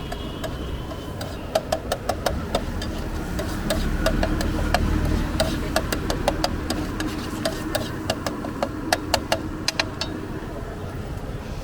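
Quick runs of metallic clinks and taps, several a second, from a utensil striking and scraping a metal pan or bowl as street food is mixed, over a steady low background hum.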